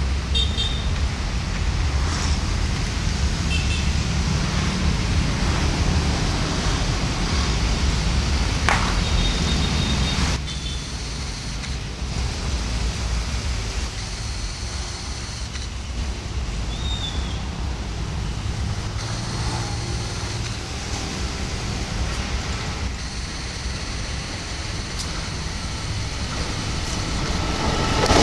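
Diesel-electric locomotive's engine running with a steady low drone as it approaches hauling passenger coaches. The sound drops a little quieter about ten seconds in.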